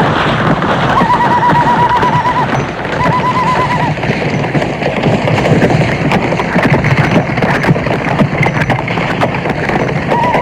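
Western-film stagecoach attack sound effect: horses galloping and whinnying under a dense clattering din, with warbling war-whoop cries (hand-over-mouth ululation) about a second in and again near three seconds. Sharp cracks stand out through the second half.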